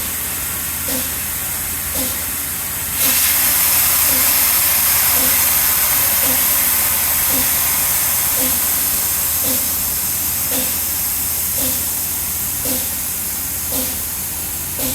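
Compressed air hissing steadily. A louder rush of air starts suddenly about three seconds in and slowly eases off. A soft tick repeats about once a second throughout.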